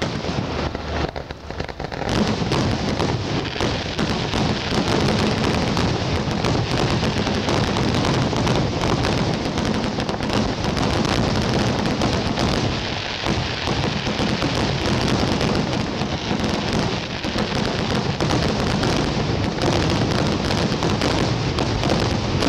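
Fireworks display in a dense barrage: aerial shells bursting in quick succession, their bangs and crackles running together into a continuous din from about two seconds in.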